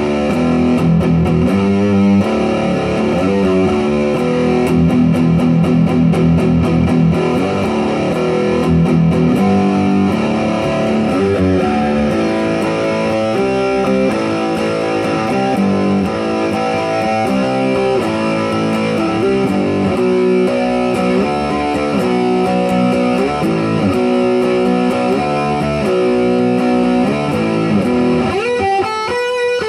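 Electric guitar in drop D tuning playing a heavy metal riff of rhythmic chords, with a slide up the neck near the end.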